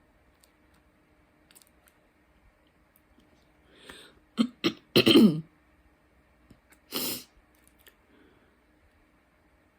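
A woman clearing her throat: several short loud coughs and a falling-pitched hack about four to five seconds in, then a short breathy burst about two seconds later. She has a frog in her throat.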